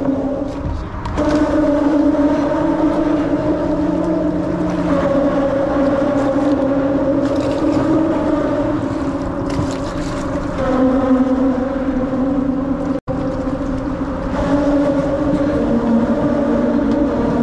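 Steady droning hum of vehicle traffic crossing the bridge overhead. Its pitch steps up or down every few seconds as vehicles pass.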